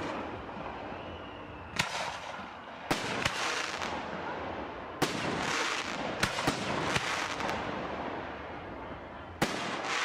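Aerial firework shells bursting: about eight sharp bangs at uneven gaps of one to two seconds, each followed by a rolling echo, over a steady rumble from the display.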